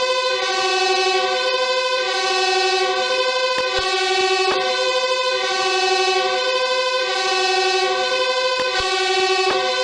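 Fire siren sound effect holding a steady chord of several notes, with no rise or fall in pitch, swelling slightly about every two seconds. A few faint clicks break in along the way.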